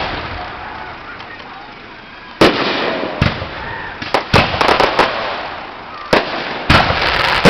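Fireworks going off: a fading rumble, then a loud bang about two and a half seconds in, followed by a scatter of sharp pops and crackles. Two more bangs come near the end, running into dense crackling.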